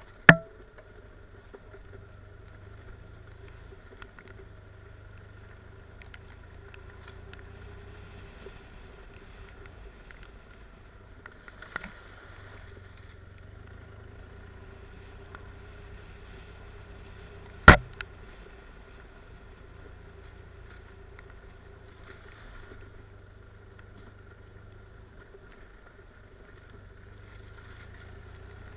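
Motorcycle engine running steadily at low speed over a rough dirt trail, with two sharp knocks, one right at the start and one about two-thirds of the way through, the loudest sounds.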